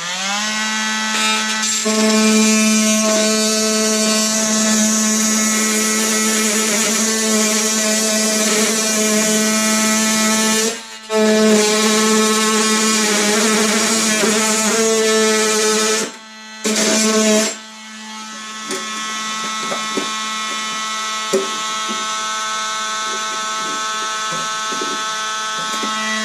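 Oscillating multi-tool cutting through the rusted sheet steel of a car door bottom, running with a steady high buzz. It stops briefly about eleven seconds in and again around sixteen seconds, then runs on a little quieter.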